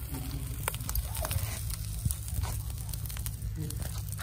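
Charcoal fire crackling under a whole pig roasting on a spit, with scattered sharp pops and ticks over a steady low rumble.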